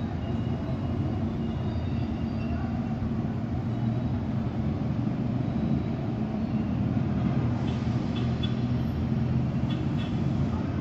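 Steady low rumble of distant city traffic with a faint hum, and a few faint ticks near the end.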